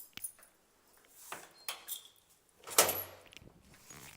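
A door being handled: a few light clicks, then a louder knock-and-swish about three seconds in as it swings shut.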